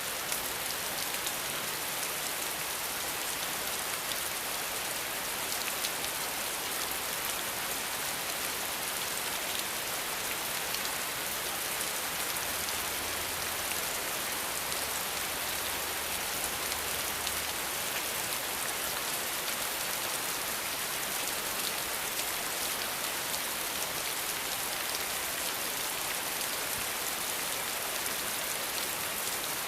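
Steady rain falling on a surface: a dense, even hiss of many drops that holds constant throughout.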